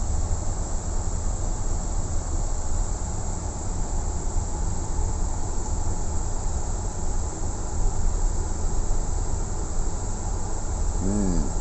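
Steady cockpit noise of a Boeing 777-200 under tow, with a low rumble beneath a constant high hiss. The aircraft is rolling behind a tug with the APU running and supplying power.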